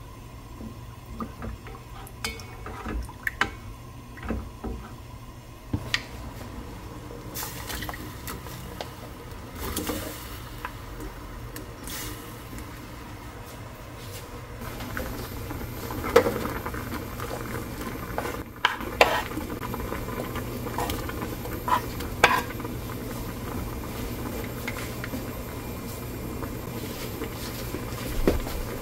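Doenjang stew simmering in an earthenware pot, with scattered knocks as it is stirred with a wooden spoon and ingredients are added. The bubbling gets louder from about halfway.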